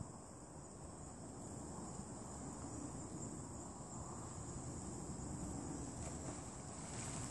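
A steady, high-pitched chorus of insects, growing a little fuller near the end, over a low rumble.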